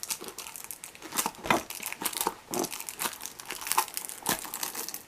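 Clear plastic wrapping on a booklet crinkling as it is handled and pulled out of a cardboard watch box: a run of irregular sharp crackles.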